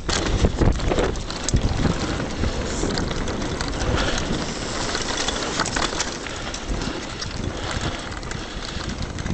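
Mountain bike rolling fast down a dirt and gravel trail: tyres crunching and rattling, the bike knocking over bumps, and wind buffeting the microphone. The hardest knocks come in the first second.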